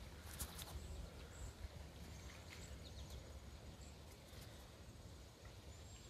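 Faint outdoor ambience: a low rumble, a few soft clicks about half a second in, and several short, faint high-pitched chirps.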